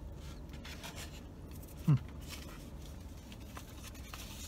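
Soft rustling and rubbing of a paper napkin being handled, with one short low voiced 'mm' about two seconds in.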